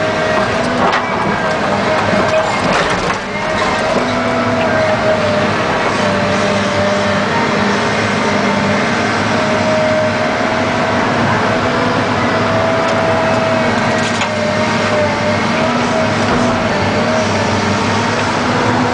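John Deere 690 excavator's diesel engine running steadily under load, heard from inside the cab, with a steady high whine over the engine hum. A couple of sharp knocks come in the first few seconds, as the bucket of soil lifts and swings.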